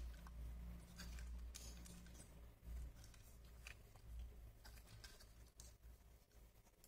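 Near silence with a low hum and a few faint clicks and taps of a small plastic RC car chassis being turned over in the hands.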